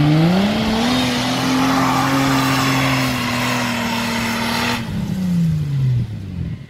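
Suzuki off-roader's engine revving up and held at high revs on a steep hill climb, with a dense hiss of spinning tyres and flung dirt. A little under five seconds in, the hiss cuts off suddenly and the revs fall away.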